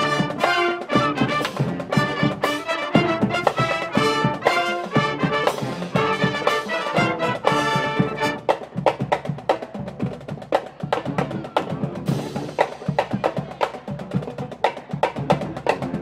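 High school marching band playing: brass over a steady beat of drums and percussion, turning quieter and more percussive for a stretch about halfway through.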